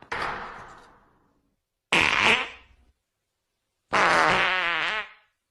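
Three fart sound effects about two seconds apart: two short ones that fade out quickly, then a longer one lasting about a second with a wavering, fluttering pitch.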